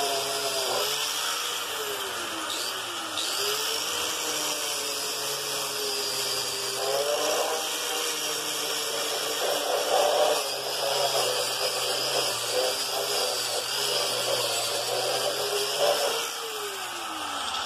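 Handheld power tool spinning a wire cup brush against the rusty metal of a drill press column and base, stripping rust. The motor's pitch sags and recovers as the brush is pressed on and eased off, with rougher scratchy scrubbing through the second half.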